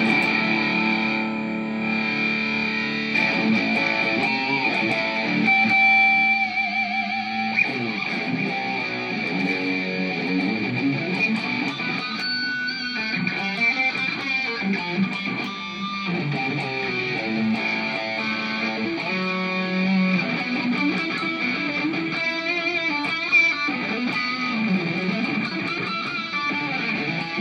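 Electric guitar played through a Zoom G5n multi-effects processor: a lead line of single notes with string bends and vibrato. A steady high-pitched whine sits under the playing.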